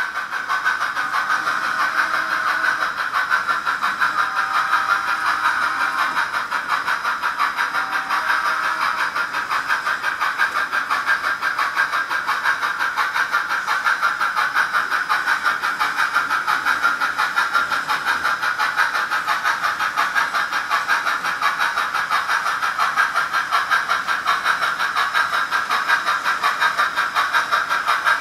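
Sound-decoder steam exhaust of an S-scale model of a B&O EM-1 articulated steam locomotive, played through a small onboard speaker. It is a continuous hissing chuff in a fast, even rhythm.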